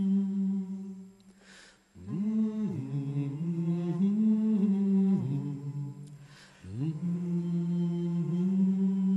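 A singer's voice carrying a wordless melody with no accompaniment, notes sliding into one another, breaking off twice for a breath, about a second and a half in and again about six seconds in.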